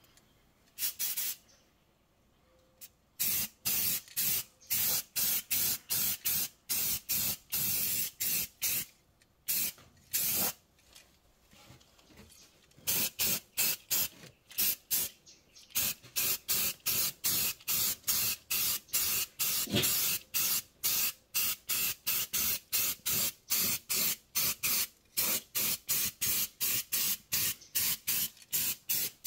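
Aerosol spray-paint can sprayed in many short hissing bursts, roughly two a second, as a coat of paint goes onto a steel control arm, with a short pause about halfway through.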